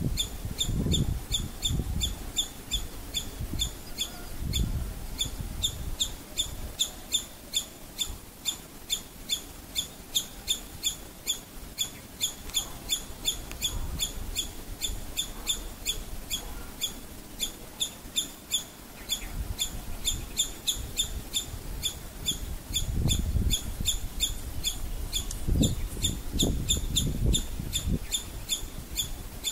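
Squirrel's alarm call: a sharp, high chip repeated steadily about three to four times a second. Low rumbling noise comes in the first few seconds and again near the end.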